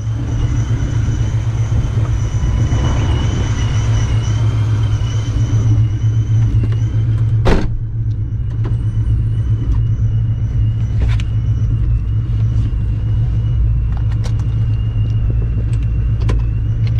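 Straight-piped, supercharged 2004 Ford Mustang GT 4.6-litre V8 idling with a steady deep exhaust rumble and a thin high whine over it. A sharp click comes about seven and a half seconds in.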